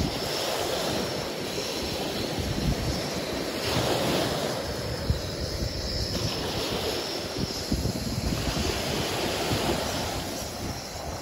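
Steady wash of sea surf with wind gusting on the microphone.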